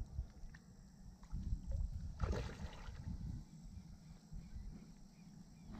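Low, steady rumble of wind on the microphone, with a brief burst of noise about two seconds in.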